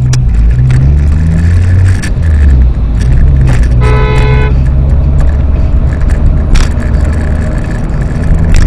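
Steady engine and road drone heard inside a Ford Mustang's cabin, with one short car horn honk of about half a second in the middle.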